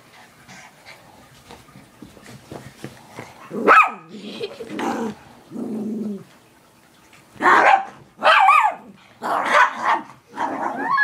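Two dogs play-fighting. Light scuffling at first, then a sharp yelp about four seconds in, low growling, and a run of barks and yips through the last few seconds.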